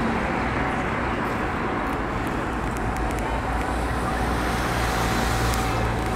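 Steady outdoor background rumble and hiss with no distinct events, like open-air ambience with distant traffic.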